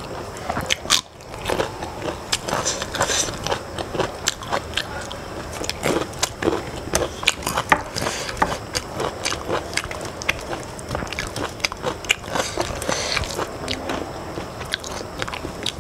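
Eating sounds of rice and curry eaten by hand: chewing with many small clicks and crackles, and fingers mixing rice and curry on a stainless steel plate.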